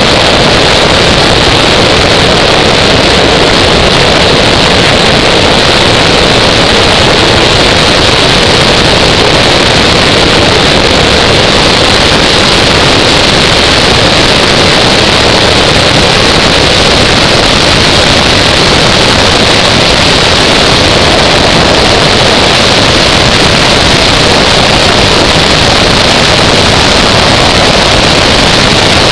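Steady, loud rush of wind and road noise from an engineless gravity car coasting downhill, picked up by a camera mounted on the car.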